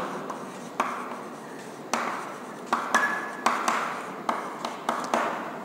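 Chalk writing on a chalkboard: a string of sharp taps, about two a second, each trailing off in a short scrape as the letters are stroked.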